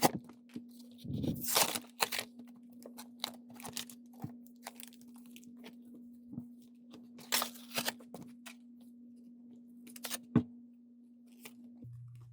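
Cardboard-and-plastic blister packaging of a trading-card pack being torn open by hand, in a series of irregular rips, crackles and clicks.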